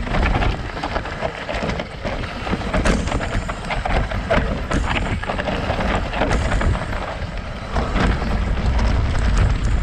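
Full-suspension BH Lynx mountain bike rattling down a rocky trail: tyres crunching over loose stones and a steady run of irregular knocks and clatters from the bike, with wind rumbling on the camera microphone.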